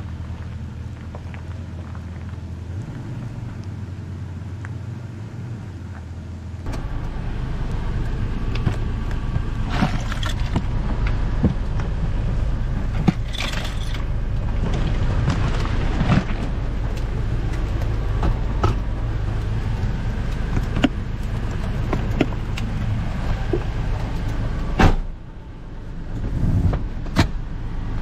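Third-generation Toyota Tacoma pickup running, heard from inside the cab: a steady engine hum, a louder rumble from about seven seconds in, and scattered knocks and clicks, with a few sharper knocks near the end.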